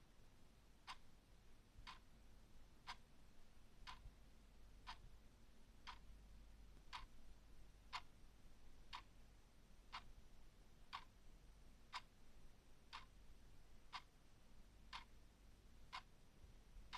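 Clock ticking steadily, one faint tick each second.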